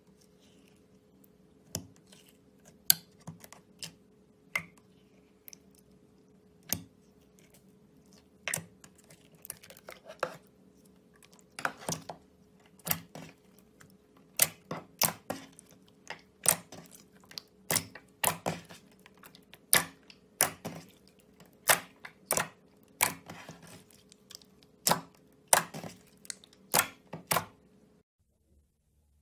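Metallic slime squeezed, stretched and kneaded by hand, giving sharp clicking pops from trapped air, irregular and few at first, then coming faster. A faint steady hum runs under it and stops just before the end.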